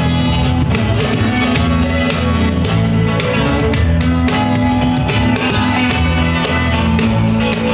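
A band playing a funky groove: drum kit with the bass drum locked in with the bass guitar's line, over guitar.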